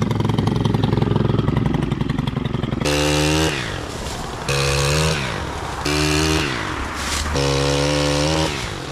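Gas pole saw's small two-stroke engine running close and rough, then revved hard in four bursts about a second long, each falling back to idle, as the chain cuts maple limbs.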